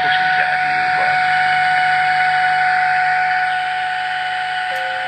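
Medium-wave reception through the Videoton R5932 radio's loudspeaker, driven by its one repaired germanium-transistor amplifier channel: steady hiss with a high whistle tone, the interference heard between or under AM stations, over a low hum. A few short gliding tones come near the start.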